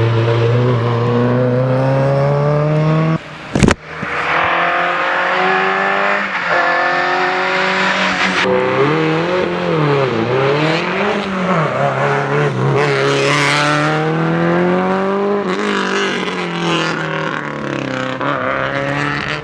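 Rally car engines at full throttle. One engine climbs steadily in pitch, then cuts off abruptly with a click a little over three seconds in. Another engine follows, its revs rising and falling several times before climbing again.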